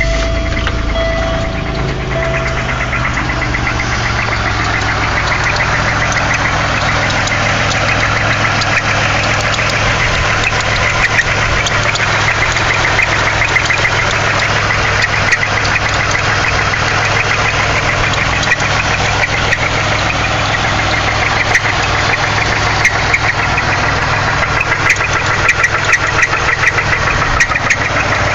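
1998 Pontiac Grand Prix GT's 3800 (3.8 L) V6 idling with a fast, steady knock from the bottom end: a confirmed rod knock, a worn connecting-rod bearing.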